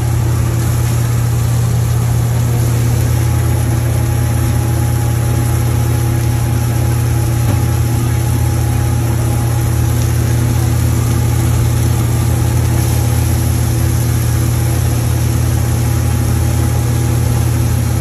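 Steady, loud roar of a hawker stall's gas wok burner at full flame: a low droning hum that does not change.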